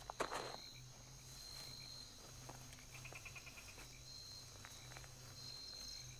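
Faint night ambience of insects and frogs: a thin high insect note that comes and goes, and a short rapid trill of about ten pulses about three seconds in. A brief rustle in the undergrowth at the very start is the loudest sound.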